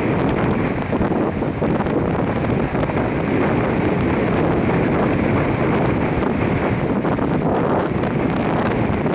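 Strong wind buffeting the microphone in a steady rumbling roar, over the wash of a choppy sea.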